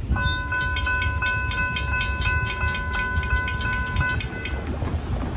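Railroad grade-crossing bell ringing rapidly, about four strikes a second, while the warning lights flash and the gates rise after the train has cleared. It stops about four and a half seconds in, leaving a low rumble.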